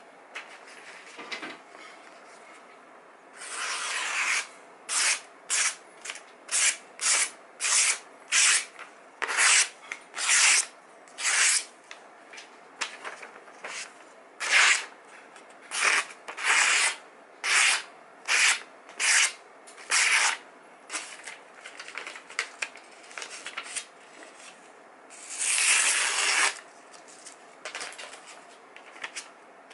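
A sharpened Zwilling kitchen knife slicing through glossy catalogue paper in a string of short, rasping cuts, about one a second, with one longer cut near the end. This is a paper test of the edge's sharpness.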